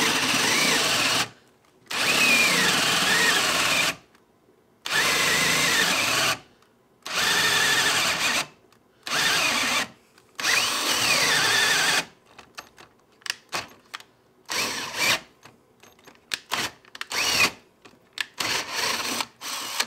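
HART cordless drill boring a 3/4-inch hole in lumber, its motor whining in bursts of one to two seconds with short pauses between. Over the last eight seconds the trigger is worked in many quick short stabs as the bit gets through.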